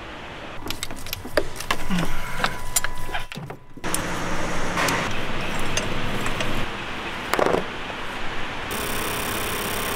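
Hand tools working on a car engine's fuel-injector area: a run of sharp clicks, knocks and rattles as the injectors are taken out. Then comes steady workshop noise, and a steady hiss starts near the end.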